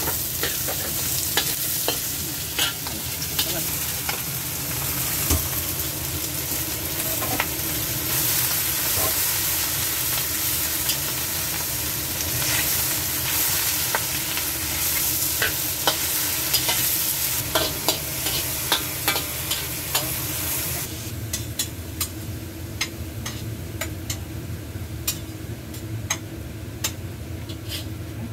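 Choy sum and garlic stir-frying in hot oil in a wok: a steady sizzle with a metal spatula scraping and clicking against the pan. About three-quarters of the way through the sizzle drops away, leaving mostly the spatula's clicks.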